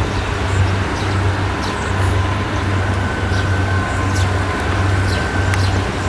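Several Kubota DC70 combine harvesters running together while cutting rice: a steady low engine drone with a faint high whine over it.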